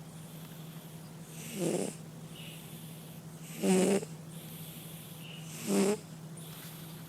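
Domestic cat snoring in its sleep: three snores about two seconds apart, the middle one loudest.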